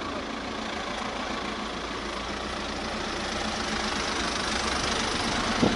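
A motor vehicle's engine running steadily, slowly growing a little louder.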